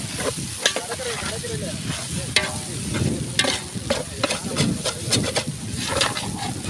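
A ladle stirring and scraping through thick tuna thokku in a large metal pot, in uneven strokes, while the hot mixture sizzles over the fire as eggs are worked in.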